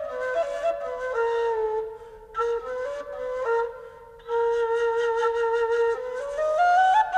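Background music: a flute playing a slow melody of held notes that steps down in the middle and climbs again near the end.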